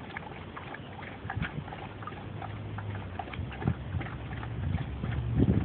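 Border Collie puppy lapping water from a plastic basin: quick, irregular wet laps and tongue clicks several times a second. A low hum rises behind it from about two seconds in and is loudest near the end.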